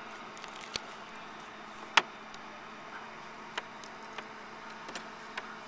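Scattered small clicks and taps as a hooked smallmouth bass is handled and unhooked, the loudest about two seconds in, over a faint steady hiss.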